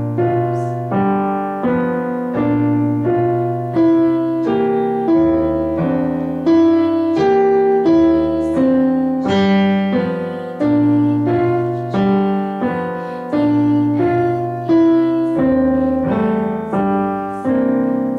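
Piano duet played together on classroom digital pianos through their speakers: a simple melody over a lower accompaniment at a steady, moderate tempo, ending on a held chord that fades near the end.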